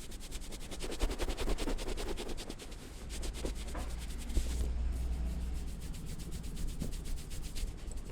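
Hands rubbing quickly and rhythmically over skin in a massage, many strokes a second in an even run that stops near the end.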